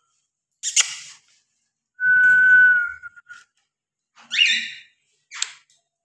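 Cockatiels calling in a cage: a few short harsh chirps and one steady, held whistled note lasting about a second.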